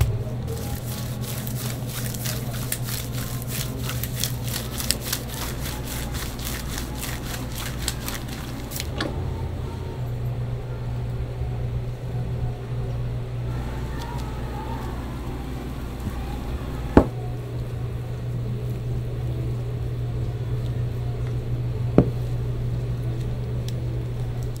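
Steady low hum of kitchen equipment, with dense fine clicking through the first nine seconds and two sharp knocks later on, as dough strips are handled on a counter and wound onto a wooden chimney-cake spit.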